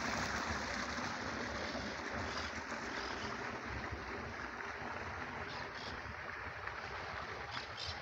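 Steady rushing hiss of outdoor ambience, slowly fading, with a few faint short ticks near the end.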